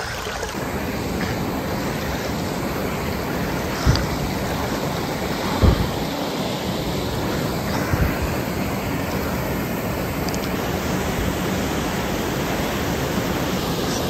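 Waterfall and creek water rushing steadily, picked up close to the water's surface, with a few brief low thumps about four, six and eight seconds in.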